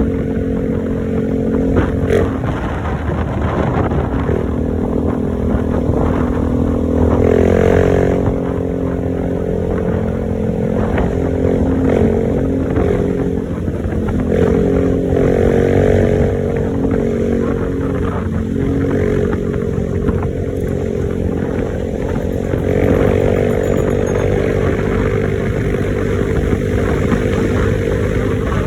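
A small engine running steadily, its revs rising and falling a few times.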